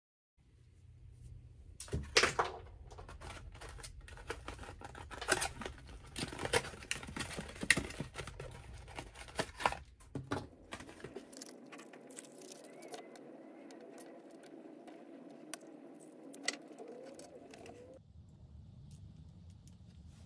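Kinder Surprise eggs being unpacked by hand: foil wrappers and a cardboard box crinkling and tearing, with sharp clicks and snaps, busiest through the first half. After that the handling is quieter, with small plastic toy parts being fitted together near the end.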